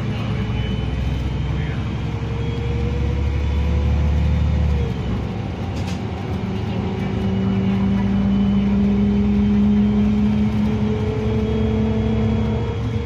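Karosa B 961E articulated city bus's diesel engine and drivetrain heard from inside the passenger cabin while driving: a steady low drone that eases off about five seconds in, then a humming tone that climbs slowly as the bus picks up speed.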